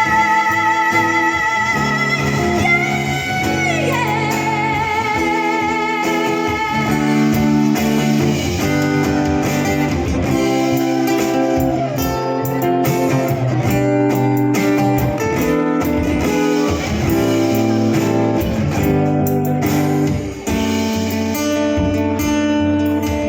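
Live band playing an instrumental break in a slow love ballad, a guitar carrying the melody over sustained backing chords.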